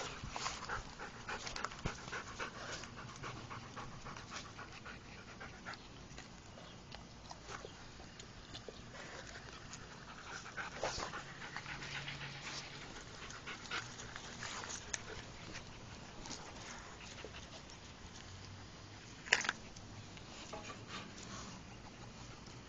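Rottweiler puppies panting close to the microphone, with quick short rustles and ticks, busiest in the first few seconds. A single brief sharp noise stands out about nineteen seconds in.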